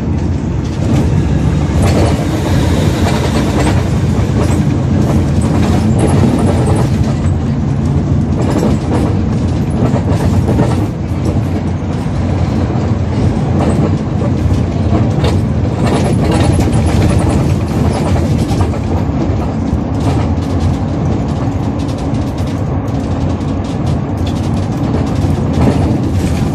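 Ride inside a moving city bus: steady engine and road rumble with rattles and clicks from the body.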